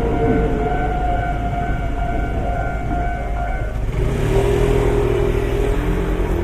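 Sounds at a railway level crossing. A train's steady pitched hum ends a little under four seconds in, and then a road vehicle's engine moves off.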